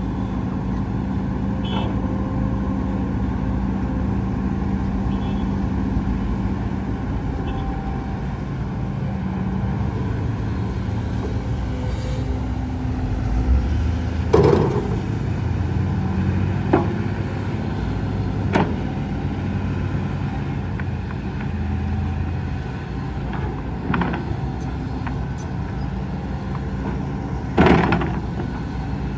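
Heavy diesel earthmoving machinery, an excavator working with dump trucks, running steadily. Several sharp knocks and clunks sound over the engine drone, the loudest about halfway through and near the end.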